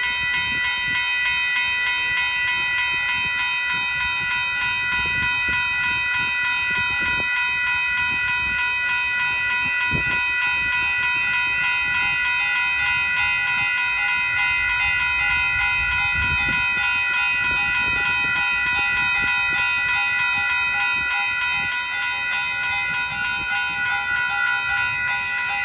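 Railroad grade-crossing warning bell ringing steadily, about three strokes a second, while a Caltrain Stadler KISS electric multiple unit approaches with a low rumble and a few thumps from its wheels.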